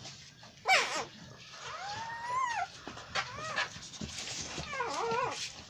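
Newborn American Bully puppy crying: a string of high squeals and whimpers. The loudest is a sharp falling squeal about a second in, followed by a long cry that rises and falls, then several shorter ones.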